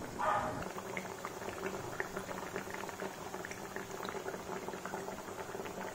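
Breadcrumb-coated cutlets deep-frying in hot coconut oil: a steady sizzle full of rapid, irregular crackling pops.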